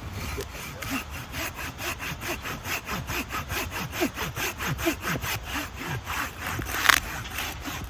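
Folding hand saw cutting through dead standing wood in quick, even strokes, about four or five a second, with one louder crack near the end.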